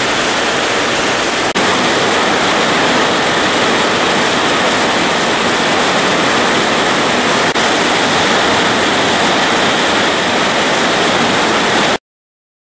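Torrential rain pouring down in a steady, loud hiss, with two brief blips, then cutting off suddenly near the end.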